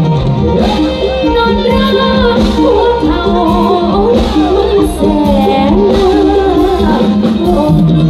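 Live Thai luk thung band music played loud through a stage PA, with a woman singing the melody over a steady bass and beat.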